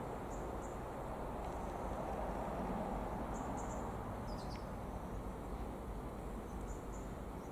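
Low steady rumble of an Irish Rail 29000 class diesel multiple unit approaching, swelling slightly a few seconds in, with short high bird chirps several times over it.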